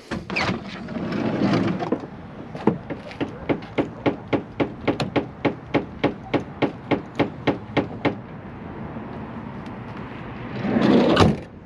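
Footsteps: a quick, even series of knocks, about three a second, for some five seconds, followed near the end by a short rush of noise.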